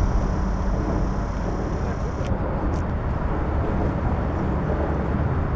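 Steady outdoor background noise: an even rumble and hiss with a low hum underneath, with a couple of faint clicks a little over two seconds in.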